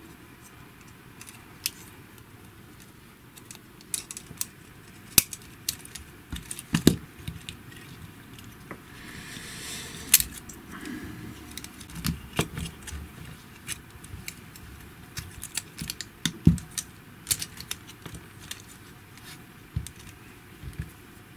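Irregular small clicks and knocks of plastic parts being handled, as the cable end and circuit board of a GHD Platinum hair straightener are worked into the arm's plastic housing by hand. A short rustling hiss comes about nine seconds in.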